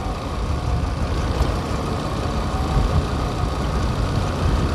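Motorcycle riding at a steady cruising speed, heard through a helmet-mounted microphone: the engine and wind noise blend into a steady rumbling hiss.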